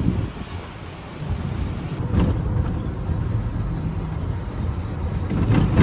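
Wind buffeting the microphone as a steady, uneven low rumble, with a short clatter about two seconds in and again near the end.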